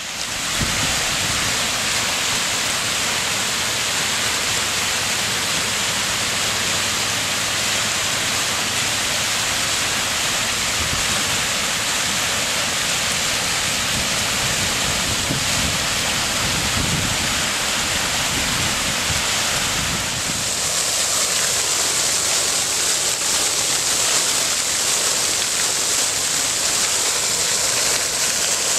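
Plaza fountain running: a vertical water jet and water spilling over cascade ledges into the pool, a steady rushing splash that grows brighter about two-thirds of the way through.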